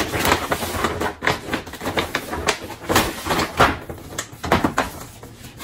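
Gift-wrapping paper being ripped and crumpled off a boxed present: a quick, irregular run of tearing and crinkling noises.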